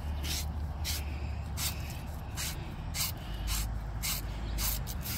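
Copper pipe being scrubbed clean in short, repeated twisting strokes, about two a second, with a wire pipe-cleaning brush, scraping off a spot of dirt before flux and solder. A low steady hum runs underneath.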